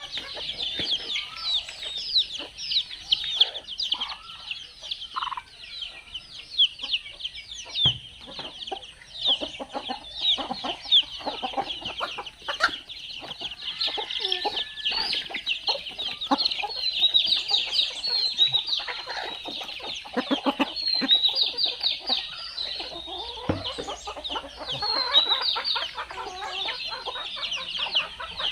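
A brood of young Desi chicks peeping: a dense, continuous chorus of short, high, falling peeps, with scattered lower clucking from adult chickens among them.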